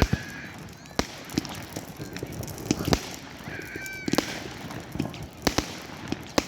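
Fireworks going off, about a dozen sharp bangs and cracks at irregular intervals. Two short, high honk-like tones cut in, one at the start and one about three and a half seconds in.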